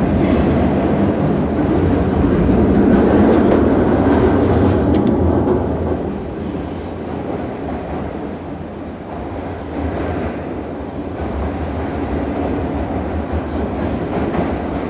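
JR West 201 series electric train running, heard from inside the carriage: a steady rumble of wheels on rail with some clickety-clack, easing after about five seconds as the train slows on arrival at its terminus.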